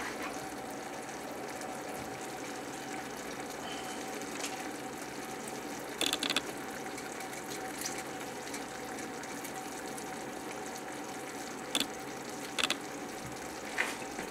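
Blueberries, butter and lemon simmering in a saucepan on medium-low heat: a steady soft bubbling hiss, with a few light ticks now and then.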